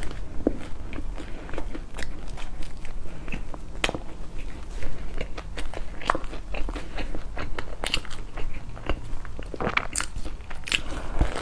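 Close-miked eating: a person biting into and chewing a long bread loaf, with irregular crunches and crackles of the crust and mouth clicks, a few louder bites standing out.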